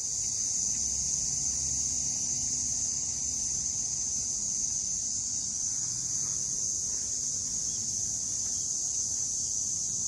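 A chorus of summer insects shrilling high and steady, unbroken throughout, with a faint low rumble beneath it.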